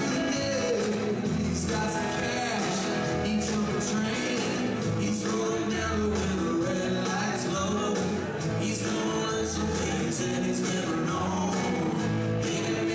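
Live rock song: a man singing lead over guitar and a band, steady throughout.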